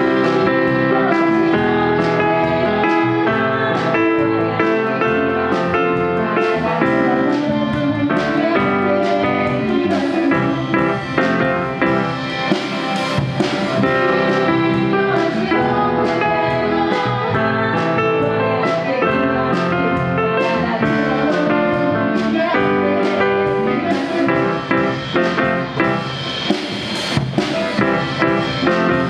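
A live band plays a song, with electric bass, electric guitar and a steady drum beat, while a woman sings into a microphone.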